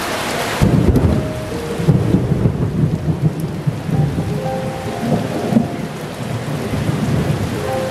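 Heavy rain pouring down. About half a second in, the high hiss gives way to a low, uneven rumble.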